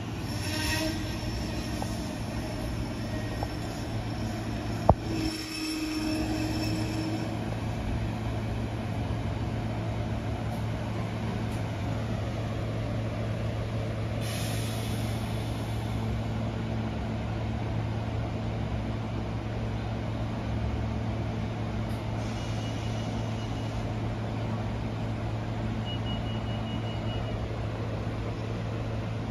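SEPTA Silverliner IV electric commuter train pulling into the platform and stopping, with a steady low hum from the train throughout. A brake or wheel squeal sounds over the first several seconds, with a sharp click about five seconds in and a brief hiss of air about halfway through. Two short, high beeps come near the end.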